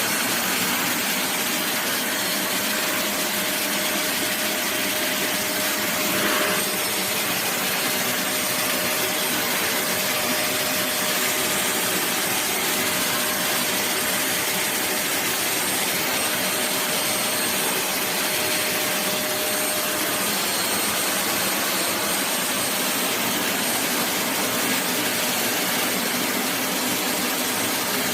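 Deerma DX115C stick vacuum cleaner running steadily, a loud even rushing of motor and suction airflow.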